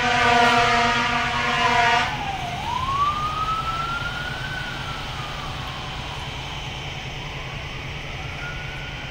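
An emergency-vehicle siren wailing, slowly rising and falling in pitch and fading as it goes. A loud steady horn blast at the start cuts off sharply about two seconds in. A steady low engine rumble runs beneath.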